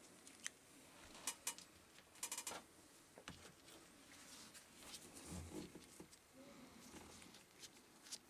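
Faint scattered clicks and ticks from scissors and small tools being handled while a thin thermal pad is cut and trimmed. A quick rattle of several clicks comes about two seconds in.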